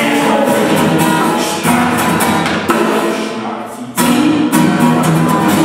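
Steel-string acoustic guitar played with dense strummed and plucked notes, the guitarist vocalizing along. The sound thins for a moment, then comes back with a sudden loud attack about four seconds in.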